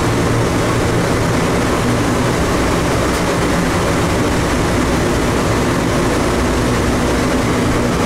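The Plane Train, Atlanta airport's driverless people mover, running through its tunnel, heard from inside the car: a steady rumble with a low hum and running noise that stays even throughout.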